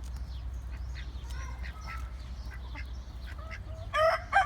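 Chickens clucking softly, then about four seconds in a rooster breaks into a loud crow.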